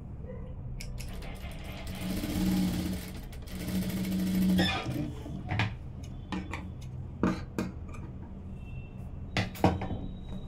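Jack industrial sewing machine stitching fabric in two short runs about two seconds in, each a second or so long. A few scattered sharp clicks and taps follow.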